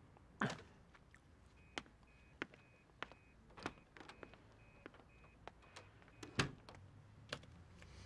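Faint footsteps on a hard floor, a sharp step about every two-thirds of a second, with a louder thud about half a second in and another about six and a half seconds in.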